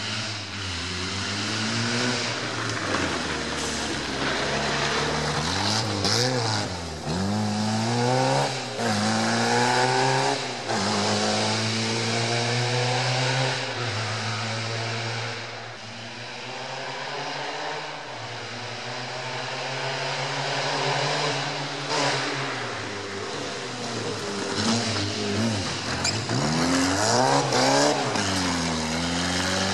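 Škoda 130's rear-mounted four-cylinder engine driving up the road, its revs rising and dropping back again and again through the gear changes. It is loudest near the end as the car passes close by.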